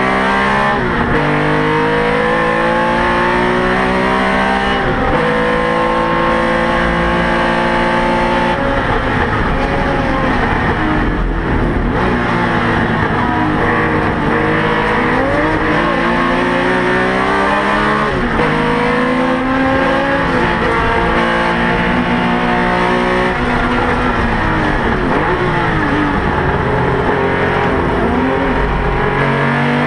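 Porsche 911 RSR's flat-six racing engine heard from inside the cockpit at full racing pace, revs climbing and then dropping sharply again and again as it shifts through the gears and lifts and brakes for corners.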